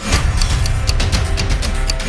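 Loud background music with a fast, steady percussive beat and heavy bass, swelling in at the start.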